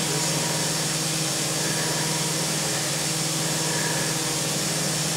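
CNC vertical milling machine running, its spindle turning a small end mill that cuts slots into a metal mold plate: a steady hum with an even hiss over it.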